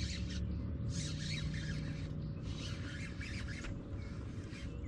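A fishing reel being cranked in short spells, with a hissing whir three or four times, each about a second long, as a hooked bass is reeled in. A steady low rumble runs underneath.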